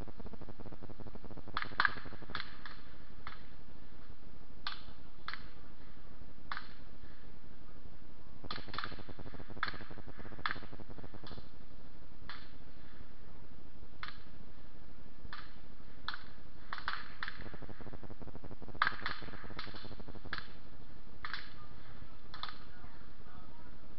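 Distant gunfire at a Civil War skirmish shooting match: dozens of single shots at irregular spacing, often two or three in quick succession, over a steady background hum. The shots are not much louder than the background, and the loudest come about two seconds in and near nineteen seconds.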